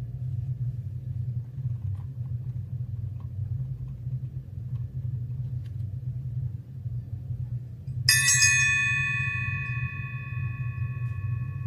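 A small brass bell struck once about eight seconds in, ringing on with several clear, steady tones that slowly fade. A steady low hum lies under it throughout.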